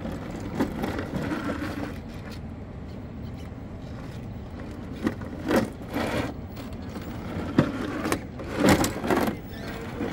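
RC rock crawler truck climbing a steep rock face, its motor and gears running slowly under load. Several sharp scrapes and knocks of tyres and chassis on the stone come in the second half.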